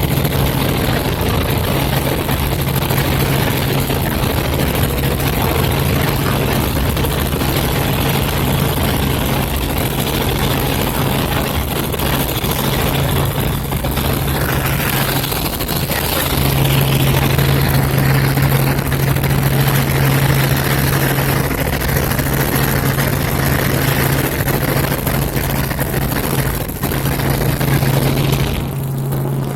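Helicopter in flight: steady engine and rotor drone with a strong low hum, dipping briefly about halfway through.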